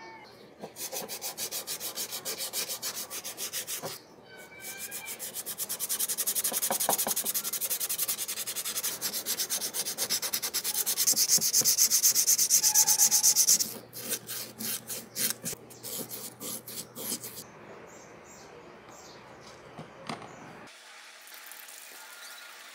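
Sandpaper (350 grit) rubbed by hand over a rusty iron hammer head in rapid back-and-forth strokes, loudest in the middle. The sanding stops a few seconds before the end, leaving a faint hiss.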